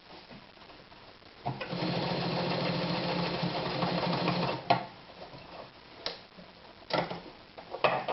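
Anker Phoenix Excelsior ZZ 151 sewing machine running steadily for about three seconds, stitching a seam, then stopping with a click. A few sharp clicks follow as the machine is handled.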